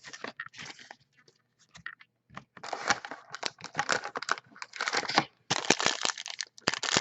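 Foil wrapper of a trading-card pack crinkling and tearing as it is opened: a few light clicks, then from about two and a half seconds in a dense run of crackles.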